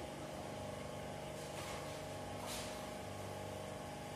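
Block-ice plant machinery running with a steady hum made of several held tones, over the hiss of spraying water. Brief louder hissing swells come about one and a half and two and a half seconds in.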